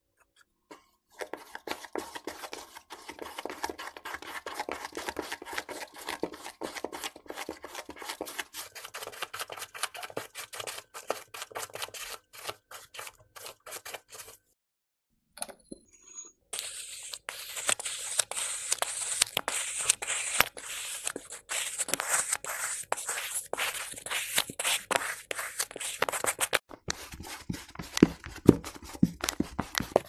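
Kinetic sand crunching and crackling close to the microphone as it is cut and pressed: a long run of fine gritty crackle, a brief pause about halfway, then a brighter, louder run of crunching.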